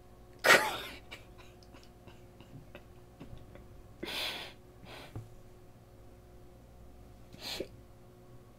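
A man's stifled bursts of laughter: a sudden loud one about half a second in that trails off, then two quieter, breathy ones near the middle and near the end.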